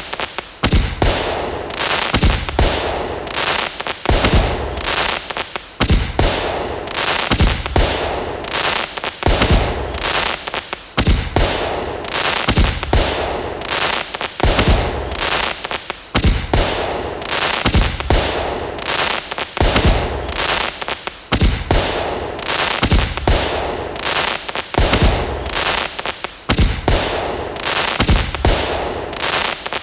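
A fireworks sound effect: a continuous string of explosions, each a sharp bang trailed by a hiss, about one every second or so.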